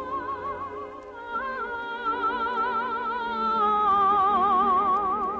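Music from a radio broadcast: a slow melody of long held notes with wide vibrato over soft sustained chords. It steps up in pitch about a second in and swells slightly louder toward the end.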